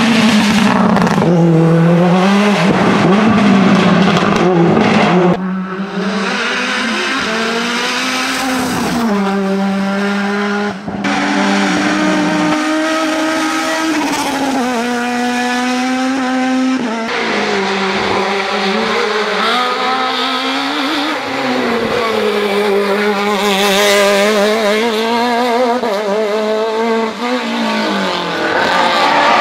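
Race car engines revving hard, one car after another. Each climbs in pitch through the gears with quick drops at the shifts. The sound changes abruptly several times as one car's engine gives way to the next.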